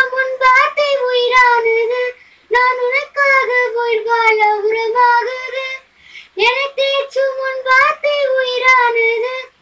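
A girl singing solo and unaccompanied, in three sustained phrases with short breaks for breath between them.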